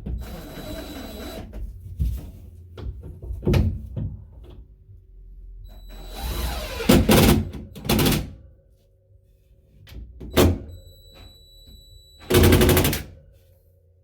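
Irregular knocks and thunks with short scraping clatters, about half a dozen in all, the loudest a rattling burst a little before the end.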